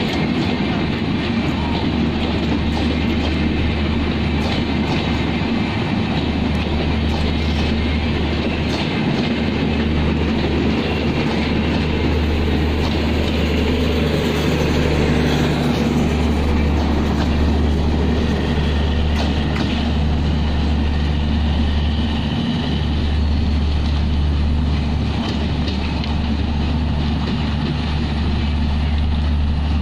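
Bangladesh Railway intercity passenger coaches rolling past, wheels clicking over the rail joints over a steady low rumble.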